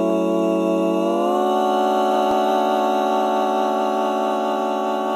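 Background music: a held chord of sustained tones that slides up into a new chord about a second in, then holds steady.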